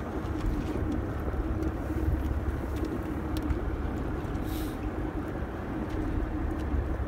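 Steady low rumble of a boat's engine running, mixed with wind and lapping water, with a brief hiss about four and a half seconds in.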